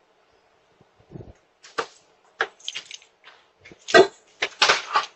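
A run of knocks, thumps and scuffs on a wooden porch, with the loudest crash about four seconds in and a clattering rush of noise right after it.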